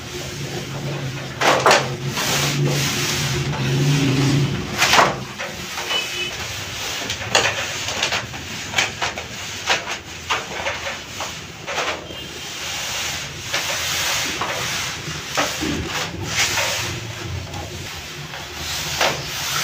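Gloved hands pulling, folding and rubbing strands of patisa (soan papdi) sugar dough against a floured work sheet: a continuous rubbing and scraping that comes in irregular strokes, some sharper than others, as the dough is stretched into fine threads.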